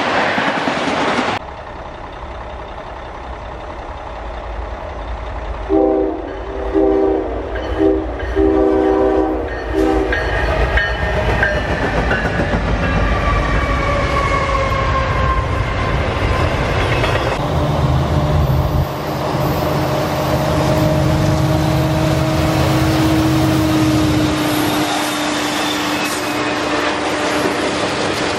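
Freight trains rolling past on jointed track, in several cut-together clips. Between about 6 and 10 seconds in, a diesel locomotive horn sounds a series of short and long blasts as a locomotive leads an intermodal train by. After that comes a steady, deep rumble as a string of tank cars passes.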